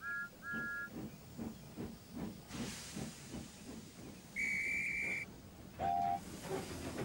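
Steam locomotive sounds: two short two-note whistle toots, then a steady chuffing beat of about two chuffs a second. A burst of steam hiss comes partway through, then one longer high whistle blast, a brief lower whistle and more hissing steam near the end.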